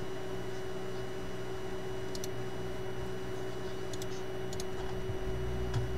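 A few faint computer mouse clicks, about two seconds in and twice more around the four-second mark, over a steady background hum and hiss.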